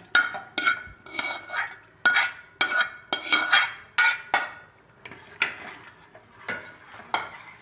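Metal ladle scraping and knocking against a metal pan and a pressure cooker while vegetables are tipped into dal and stirred: a quick run of ringing clinks and clanks, about a dozen, that thins out over the last few seconds.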